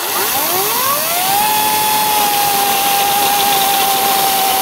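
EGO 18-inch cordless battery chainsaw spinning up with a rising whine, then holding a steady high whine as its chain cuts through a wooden board, with a hiss of chips and sawdust.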